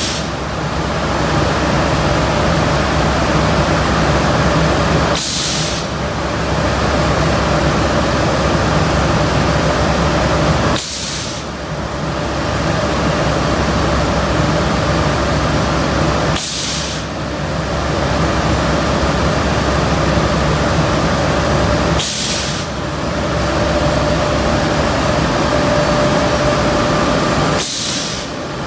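Automatic powder coating booth running: a steady rush of air from the spray guns and booth extraction, broken by a short, sharp hiss of compressed air about every five and a half seconds.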